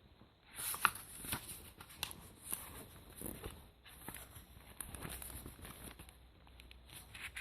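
Soft rustling with irregular small clicks and knocks: a paperback book's pages being turned and handled.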